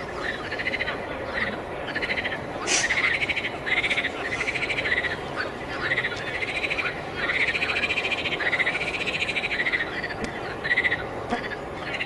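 Frog chorus: many short trilled calls, overlapping and following one another over a steady background din of more calling.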